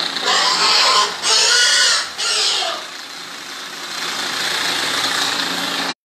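Pigs squealing: three harsh squeals, each under a second, in the first three seconds, over a steady hiss.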